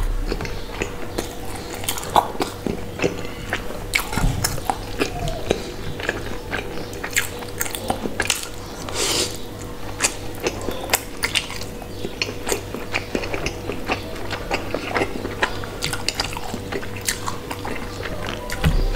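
Close-up eating sounds: wet chewing and crackling mouth clicks from bites of a fried chicken burger and spicy noodles, with a noodle slurp about nine seconds in.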